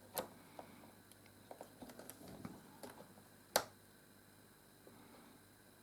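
Small plastic clicks and taps of LEGO pieces being prised out of a built model, with one sharper snap about three and a half seconds in.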